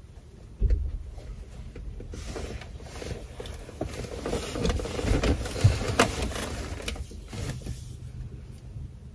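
Low rumble inside a car cabin, with a few short knocks and rustles from the phone being handled and people shifting in their seats. The loudest knocks come just after the start and about six seconds in.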